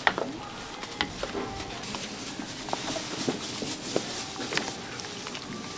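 Stirring through tteokbokki on a giant iron plate, with scattered sharp clinks and knocks over a steady sizzle.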